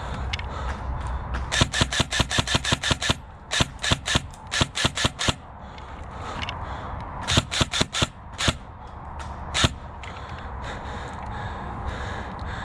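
Airsoft guns firing quick strings of shots, about six a second, in three volleys with a lone shot near the end.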